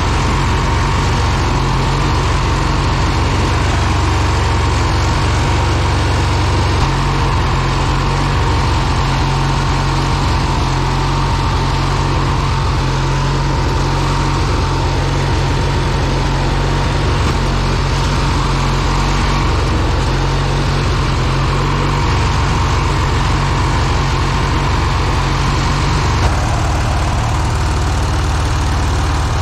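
Riding lawn mower engine running steadily while the mower drives over a dirt trail, with a steady whine alongside it; the engine note shifts a few times.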